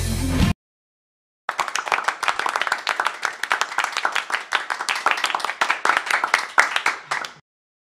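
Hand clapping from a small group, dense and uneven, lasting about six seconds. It starts about a second and a half in and stops abruptly near the end.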